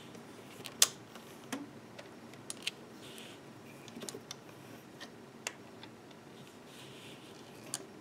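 Rubber loom bands being stretched by hand over the pegs of a clear plastic loom board: irregular light clicks and snaps of the bands against the plastic, the sharpest about a second in.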